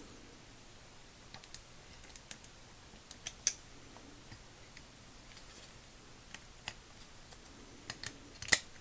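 Small steel ratchet parts clicking and tapping against each other as a ring is fitted onto the ratchet head: scattered light clicks, a little louder about three and a half seconds in and just before the end.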